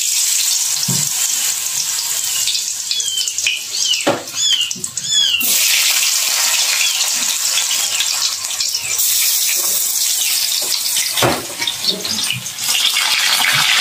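Thin cassava slices sizzling in hot oil in a small steel wok. The sizzling jumps louder about five and a half seconds in and again about nine seconds in as more slices go into the oil. A few short high chirps sound just before the first jump.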